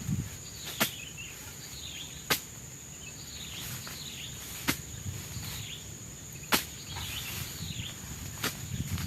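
Five sharp knocks, a second and a half to two and a half seconds apart, the second and fourth the loudest. Under them runs a steady high drone of tropical forest insects, with a short chirping call repeating about once a second.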